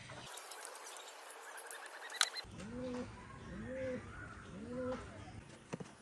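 A dove cooing three times, each coo a short rising-then-falling call about a second apart. The coos come just after a single sharp click about two seconds in.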